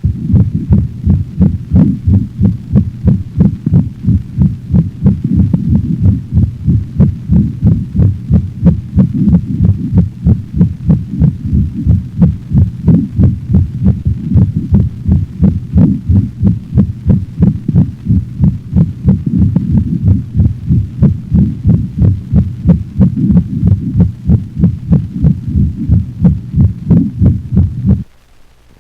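A dog's heart sounds heard through a stethoscope: fast, even beats with a steady murmur filling the gaps between them, stopping abruptly near the end.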